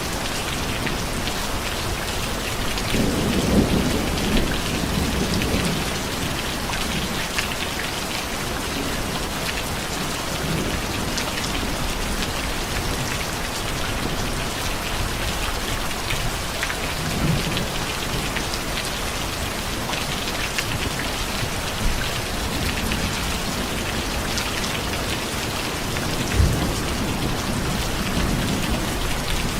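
Steady heavy rain falling and pattering on surfaces. A low rumble of thunder swells about three to six seconds in, and a few brief low thumps come later.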